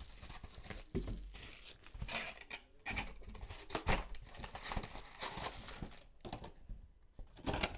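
Rustling and crinkling as wrapped trading-card packs are pulled out of a cardboard hobby box and stacked, with irregular scratchy handling noises and light knocks of packs and cardboard.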